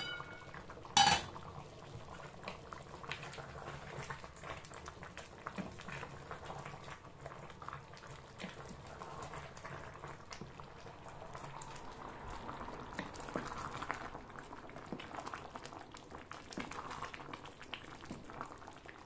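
Pot of vegetable stew with coconut milk simmering and bubbling, while a wooden spoon stirs it and scrapes against the aluminium pot. A metal pot lid clanks once with a short ring about a second in.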